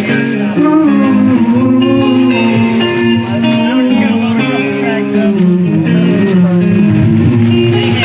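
Live band music: an instrumental stretch of a song, with guitar, and no singing.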